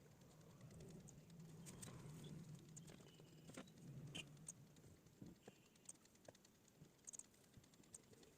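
Near silence: quiet room tone with a few faint, scattered clicks at irregular intervals.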